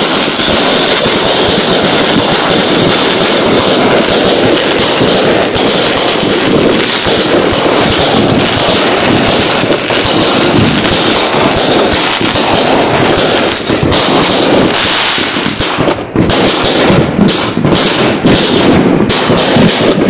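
A 200-shot fireworks cake firing in rapid, continuous succession: a loud, dense stream of launches and bursts. In the last several seconds the shots come as more separate, sharp reports with short gaps between them.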